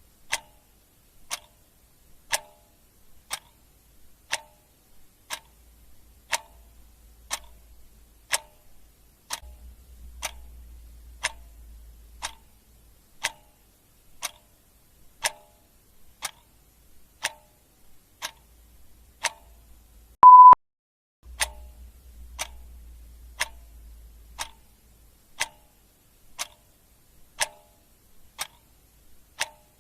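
Clock ticking steadily about once a second. A single short, loud beep sounds about twenty seconds in.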